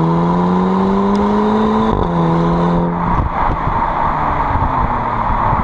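Car engine accelerating, its pitch climbing steadily and then dropping at a gear change about two seconds in, before giving way to a loud rushing noise from about three seconds on.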